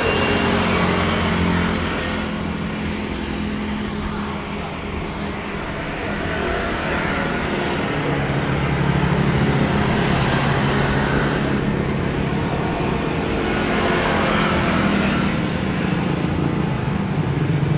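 The GE90 jet engines of a Boeing 777-300ER heard at a distance as the airliner rolls out and slows after landing: a steady rumble and roar that swells and fades every few seconds.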